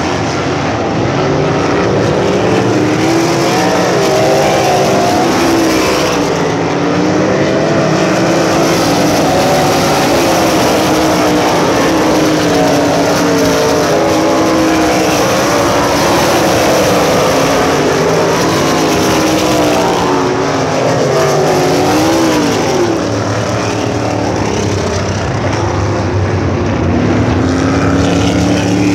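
USAC Silver Crown race cars' methanol-burning V8 engines running at racing speed, several at once, their pitch rising and falling as the cars pass and go round the track.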